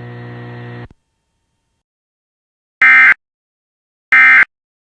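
Emergency Alert System broadcast. A steady hum with static cuts off about a second in. After a pause come two short, loud, identical digital data bursts about a second and a half apart: the EAS end-of-message code that closes the flash flood warning.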